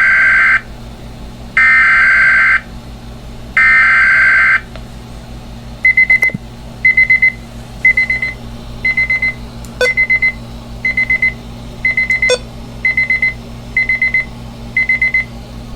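Emergency alert tones: three one-second bursts of the SAME digital header, a buzzy two-tone warble, then an alert receiver beeping in short rapid clusters, about one cluster a second.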